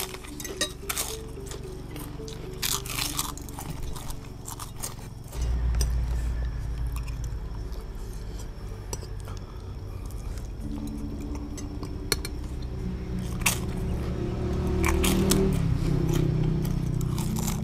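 People eating, crunching fried crackers (kerupuk) and chewing, with spoons scraping and clinking on plates, over background music.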